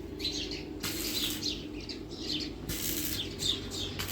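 Small birds chirping repeatedly in quick falling chirps, over a steady background hiss and low hum.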